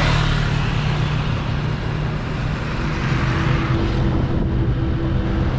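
A motor engine running steadily, with road and traffic noise around it; a second, higher engine tone joins about three seconds in.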